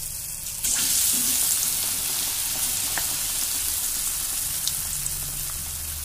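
Batter-coated brinjal slice dropped into hot oil for bajji. The oil breaks into a loud sizzle about half a second in, then settles into steady frying that slowly eases, with a few faint spits.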